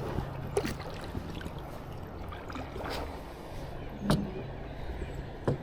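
Kayak being paddled: several sharp paddle strokes in the water, spaced irregularly, over a steady low hum.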